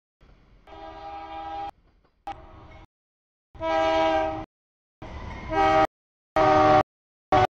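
Freight locomotive's multi-note air horn sounding a series of separate blasts for a grade crossing. The longest and loudest blast comes about four seconds in, and the last blasts are short. Each blast starts and stops abruptly.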